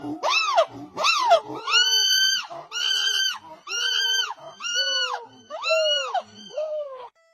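A monkey giving a run of about eight loud, repeated calls, each rising and then falling in pitch; the first few are short and quick, the later ones longer and about a second apart.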